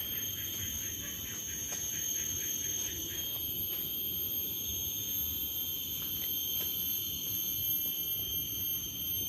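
Forest insects droning steadily at a high pitch, pulsing quickly for the first few seconds and then holding an even tone.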